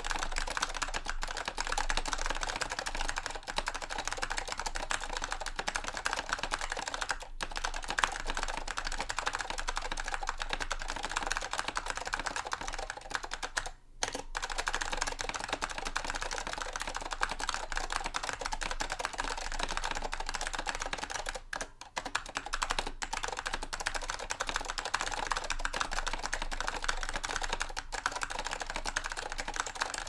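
Fast, continuous typing on an Apple Standard Keyboard M0116 with tactile orange Alps switches and PBT keycaps, a dense clatter of key strokes with two brief pauses, about a third and two-thirds of the way through.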